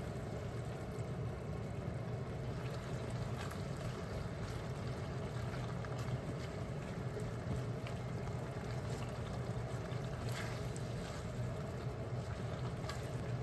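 Tofu, natto and egg frying in an iron wok on an induction hob, stirred with a spatula that scrapes the pan now and then, over a steady low hum.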